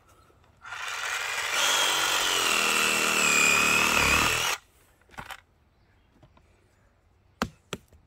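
Ryobi cordless reciprocating saw cutting through a tree root in the soil: the motor starts under a second in, runs with a high whine for about four seconds, and cuts off suddenly. A few faint clicks follow.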